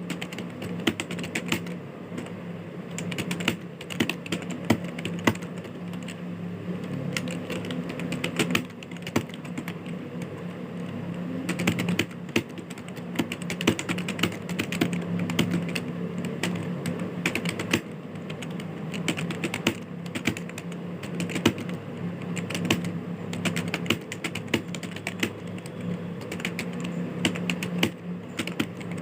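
Computer keyboard keys clicking in quick, continuous typing, with a steady low hum behind.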